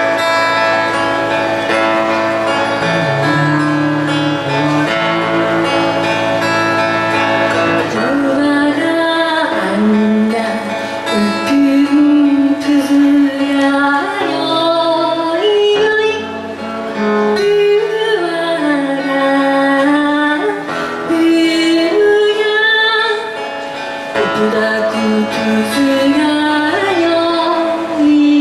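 Live band playing amplified through a PA: acoustic guitar and electric bass accompany a woman singing solo. The first several seconds are instrumental, and her voice comes in about eight seconds in.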